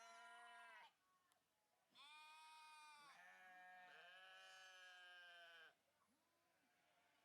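Sheep bleating: a short bleat at the start, then after a pause a long, wavering bleat of about three and a half seconds with a second bleat overlapping it, and a faint short one near the end.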